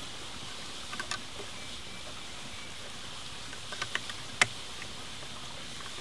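A few light clicks and taps as a PVC pipe is handled and set against a wooden frame, the sharpest click about two-thirds of the way through, over a steady outdoor hiss.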